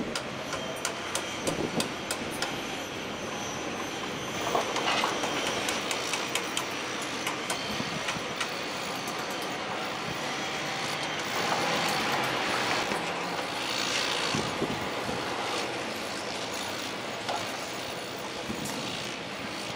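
Construction-site machinery running in a steady din, with scattered metallic clanks and knocks. The noise swells twice, about a third of the way in and again past the middle.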